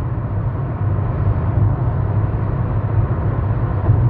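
Steady road and engine rumble heard inside the cabin of a car driving on a highway.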